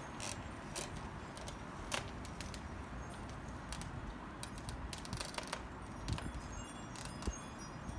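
Wind chimes tinkling faintly, with scattered light clicks over a steady low rumble.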